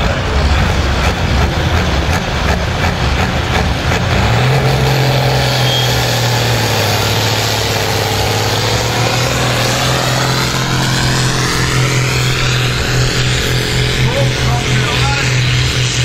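Turbocharged diesel engine of an International Harvester tractor at full throttle, pulling a weighted sled at a tractor pull. Its note steps up about four seconds in and then holds steady under heavy load.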